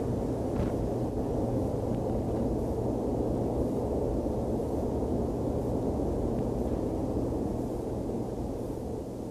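Steady low rumbling noise that begins to fade out near the end.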